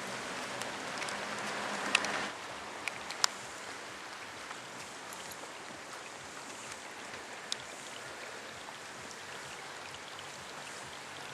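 Steady hiss of water, a little louder for the first two seconds, with a few sharp ticks scattered through it.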